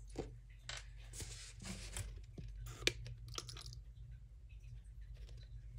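Plastic paint containers and cups handled while acrylic pouring paint is poured out: scattered clicks, crinkles and short crackles, with one sharper click about three seconds in, over a steady low hum.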